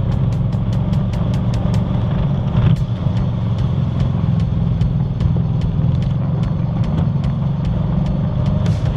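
Single-cylinder engine of a 2021 Honda Foreman Rubicon 520 ATV running steadily under load as it pushes a snow plow through heavy snow, with a quick series of clicks in the first couple of seconds and again at the very end.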